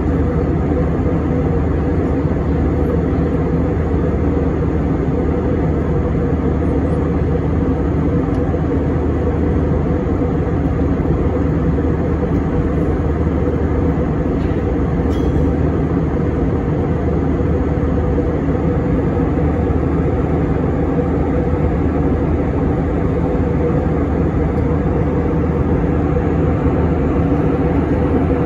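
Steady cabin drone of an Airbus A321 in cruise flight, heard from a window seat: engine and airflow noise, a low even rumble that holds constant throughout.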